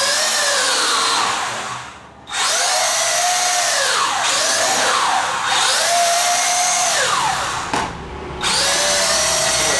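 Small quadcopter drone's electric motors and propellers whining, the pitch rising and falling as the drone manoeuvres. The whine dies away about two seconds in and comes back sharply, then cuts out briefly near the end before picking up again.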